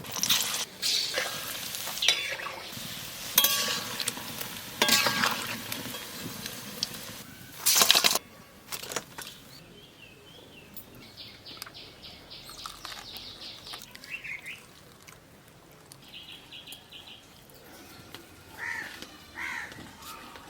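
Stirring and scraping in a cooking pan, with frying noise, loud for about the first eight seconds and then quieter. Birds chirp in the background later on.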